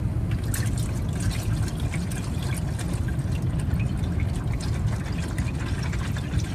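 Used engine oil pouring out of the open drain-plug hole into an oil pan: a steady splashing gush with fine crackle, cutting in and out abruptly.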